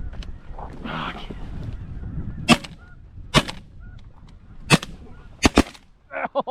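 Geese honking steadily in the background, broken by about five shotgun blasts. The last two blasts come close together.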